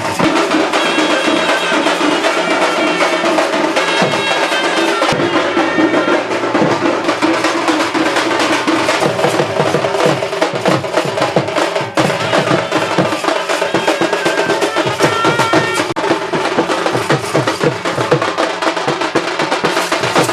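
Music with busy drumming and percussion and a melody running over it.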